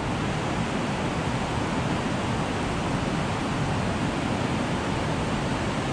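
Whitewater rushing steadily through turbulent rapids below a concrete dam.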